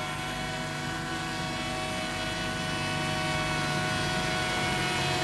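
Quadcopter drone's propellers whining steadily overhead as it climbs, a hum of several steady tones that grows slightly louder.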